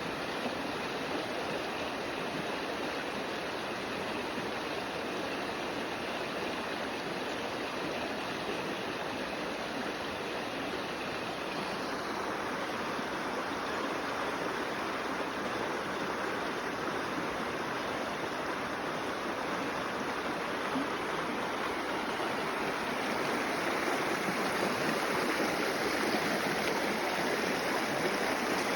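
Creek water running steadily, a little louder in the last few seconds.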